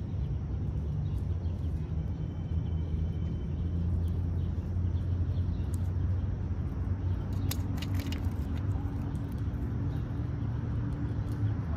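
Steady low mechanical rumble in the background, with a few faint high clicks about eight seconds in.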